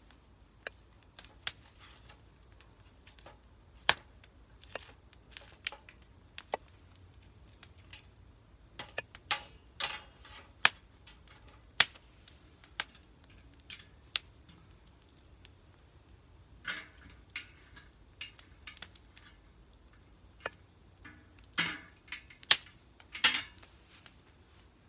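Wood fire crackling, with irregular sharp pops, a few of them loud, and short clusters of crackles.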